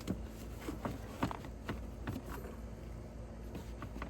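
Scattered plastic clicks and knocks of a car glove box being squeezed and worked loose from the dashboard, most of them in the first half.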